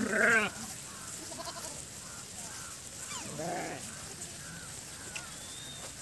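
Sheep bleating in a flock: one loud bleat right at the start, then fainter bleats about a second and a half and three and a half seconds in.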